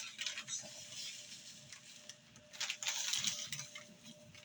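Light rustling and scraping handling noises in two short spells, near the start and past the middle, with no vacuum motor running.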